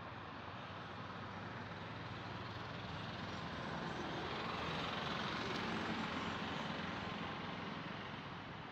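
Road traffic driving past: cars, motorcycles and an auto-rickshaw, a steady mix of engine and tyre noise. It grows loudest a little past the middle as vehicles pass close, then eases off.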